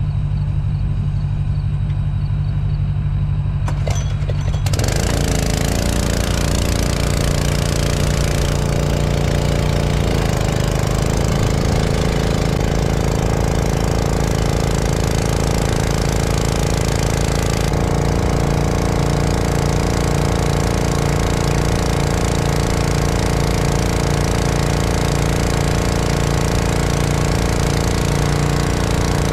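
Tractor engine running steadily under load. About five seconds in it turns abruptly louder and harsher, with a rattling clatter over the engine note.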